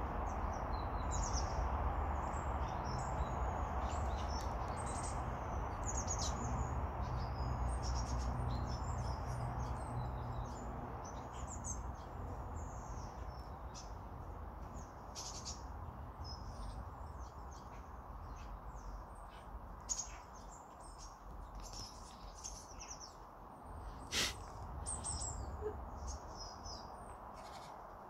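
A flock of small birds chirping and twittering, many short calls overlapping throughout, over a low steady rumble that fades in the second half. Two brief, sharper sounds stand out, about 20 and 24 seconds in.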